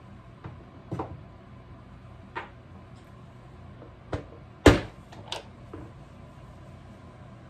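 A series of separate knocks and clunks as the barrel and wooden stock of an 1873 Springfield Trapdoor rifle are handled and worked apart. About seven in all, the loudest a sharp clack a little past halfway.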